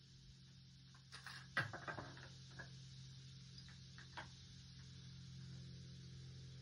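Several light clicks and taps, bunched about a second in with a couple more around four seconds, over a low steady hum.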